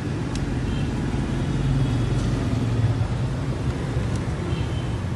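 A steady low rumble, vehicle- or traffic-like, with a few faint light clicks.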